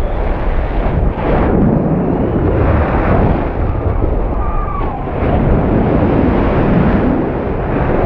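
Wind rushing over a high-altitude balloon payload's camera microphone as it falls under its parachute after the balloon burst: loud, steady wind noise, heaviest in the low end.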